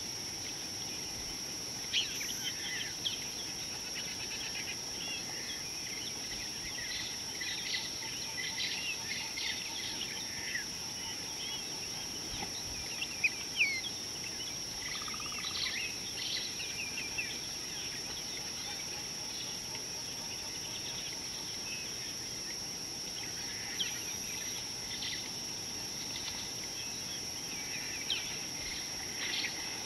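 Wild birds chirping and calling in scattered bursts over a steady high-pitched insect drone. The loudest calls come about halfway through.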